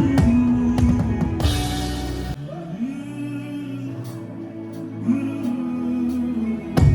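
Gospel worship music: a drum kit playing under singing. About two seconds in, after a cymbal wash, the drums drop out and only held, sliding sung notes remain; the drums come back in near the end.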